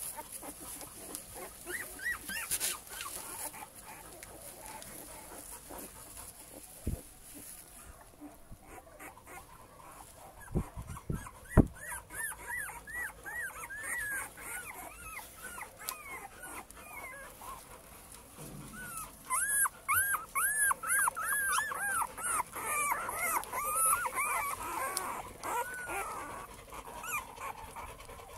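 Cane Corso puppies whimpering: quick runs of short, high, arching whines, one spell about twelve seconds in and a longer, louder one about nineteen seconds in. A few sharp knocks come shortly before the first spell, the loudest about eleven seconds in.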